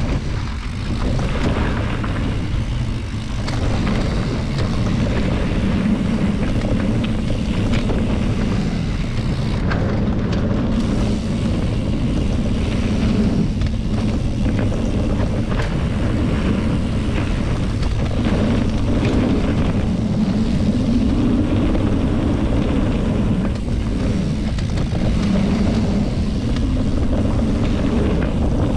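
A steady low engine drone that runs on without a break, its pitch swelling and easing slightly now and then.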